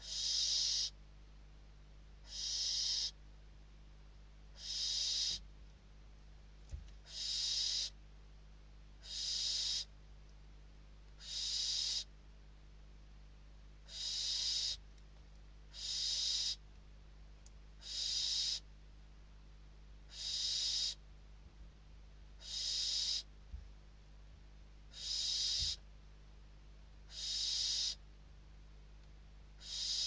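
Barn owl nestling giving its hissing, snore-like begging call: a breathy hiss of under a second, repeated steadily about every two seconds, the call of a hungry chick asking for food.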